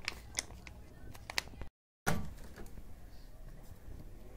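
Kitchen handling noises: a few light clicks and taps, then, after a brief cut in the sound, a sudden thump followed by quieter handling.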